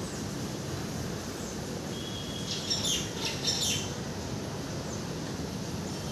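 A bird chirping, a quick cluster of short high notes about halfway through, over a steady low background rumble.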